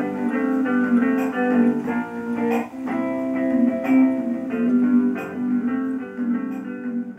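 Background music led by guitar, with picked notes in a steady rhythm.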